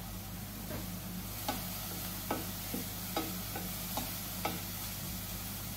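A string of light clinks of a utensil against cookware, as in stirring a pot, over the steady hum of the kitchen range hood.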